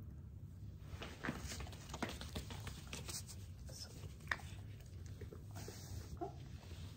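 Soft rustling and a run of light, sharp clicks as a dog comes close and takes a treat from a hand.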